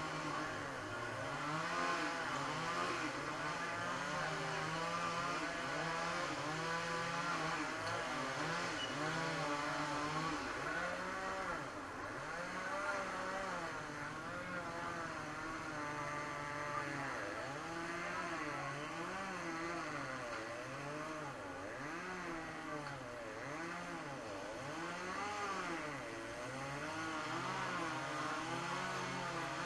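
Small engines running and revving up and down over and over, their pitch rising and falling every second or two.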